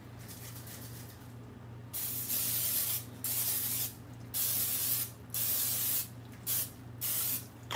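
Aerosol nonstick cooking spray hissing from the can in about six short bursts, starting about two seconds in, as the waffle iron's plates are coated. A faint steady low hum sits underneath.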